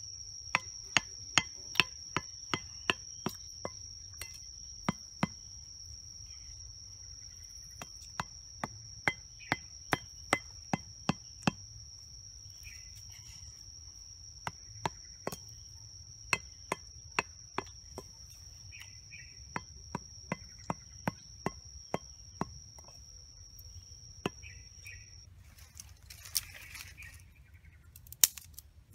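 A large knife chopping bamboo sticks: sharp, hard knocks in runs of several at about two a second, with short pauses between runs. An insect keeps up a steady high-pitched whine that stops a few seconds before the end.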